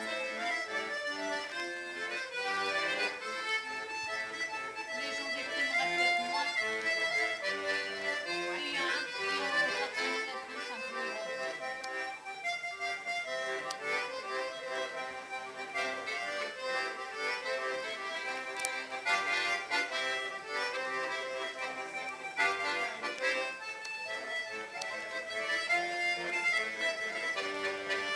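Accordion playing a traditional Breton tune.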